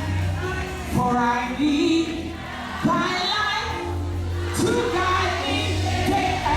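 Live gospel worship music: singers and congregation singing a hymn over a band with bass and drums.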